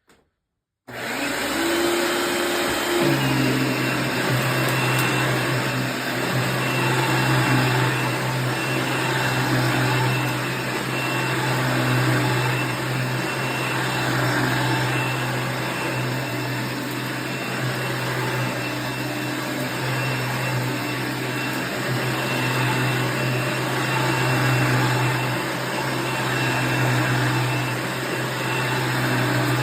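A 1994 Dirt Devil Plus upright vacuum cleaner is switched on about a second in. Its motor spins up and settles within a couple of seconds, then runs steadily with a low hum and a thin high whine.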